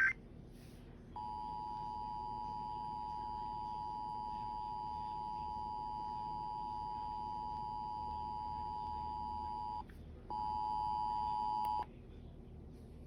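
Emergency Alert System attention signal: a steady two-tone beep that holds for about nine seconds, breaks off briefly, then sounds again a little louder for about a second and a half. It marks the start of an emergency alert, here a severe thunderstorm warning.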